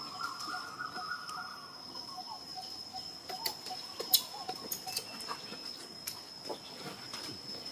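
Steady high-pitched drone of insects such as crickets or cicadas, with a fainter chirp repeating a few times a second underneath. A brief wavering call comes near the start, and a few sharp clicks fall around the middle, one of them the loudest sound.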